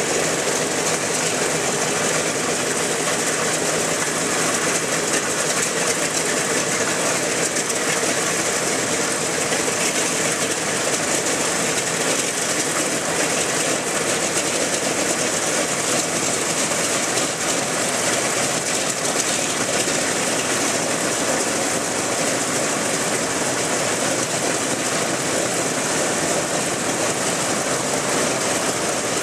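Wright R-1820 Cyclone radial engine on a B-17 bomber running steadily at idle, an even, unbroken mechanical drone with a strong hiss.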